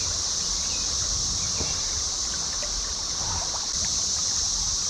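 Cicada chorus: a steady, high-pitched drone that does not let up, over a low rumbling noise and a few faint ticks.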